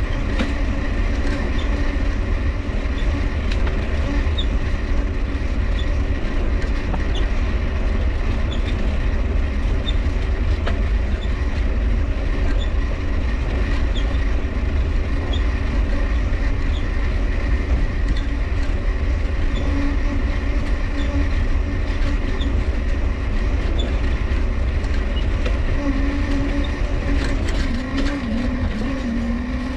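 Mifa folding bike being ridden, its dynamo running steadily over the rumble of rolling. A squeaking crank ticks about once a second, and a wavering squeal comes in near the end.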